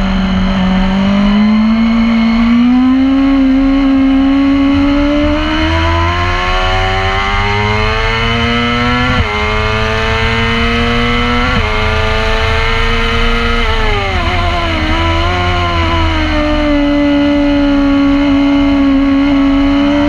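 Racing motorcycle engine heard from onboard at full throttle. Its note climbs steadily, drops sharply twice about nine and eleven and a half seconds in as it shifts up, then falls in steps around fourteen seconds as it shifts down under braking, and holds steady near the end.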